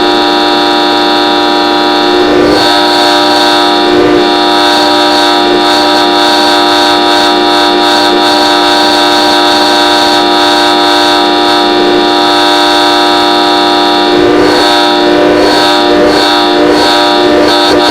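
A loud, sustained horn-like blast of many steady tones sounding together as one chord, held without a break, wavering briefly a few times and more unsettled near the end.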